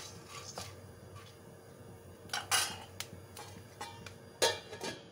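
Corn kernels sizzle in butter as a metal spatula stirs and scrapes around an aluminium kadhai, with a few sharp metallic knocks. About four and a half seconds in, a steel lid clatters down onto the pan to cover the corn for popping.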